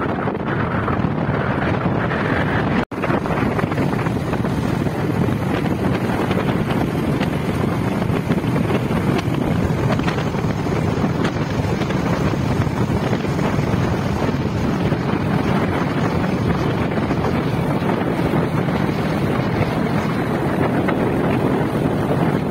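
Steady wind rush buffeting the microphone over the rumble of a moving vehicle and its tyres on a gravel road. The sound cuts out for an instant about three seconds in.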